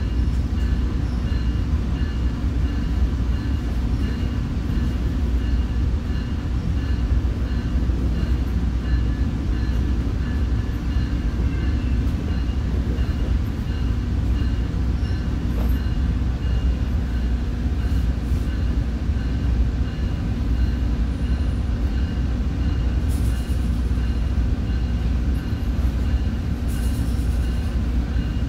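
Commuter train running between stations, heard from inside a passenger coach: a steady low rumble of wheels and running gear with a faint steady high tone above it.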